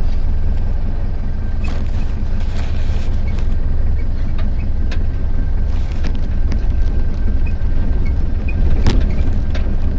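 Vehicle engine running steadily while driving over a rough dirt track, with scattered knocks and rattles from the bumpy ground.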